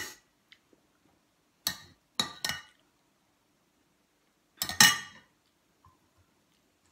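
Metal cutlery clinking against dishes: three quick clinks about two seconds in, then a louder clatter near five seconds.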